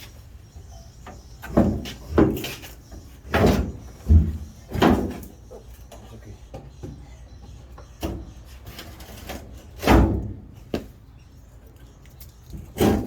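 Heavy metal bangs and thuds as a Jeep Comanche's rear bumper is worked loose from its mounts: a cluster of irregular knocks in the first five seconds, then one more about ten seconds in.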